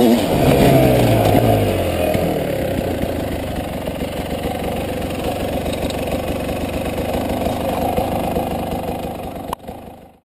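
Beta 300 two-stroke enduro bike engine coming off the throttle, its revs falling away over the first couple of seconds. It then runs steadily at low revs as the bike rolls slowly. Near the end there is a click, and then the sound cuts off.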